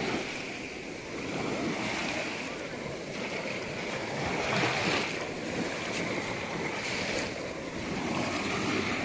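Small lake waves lapping and breaking on a sandy, pebbly shore, swelling and easing as each wave washes in, with some wind on the microphone.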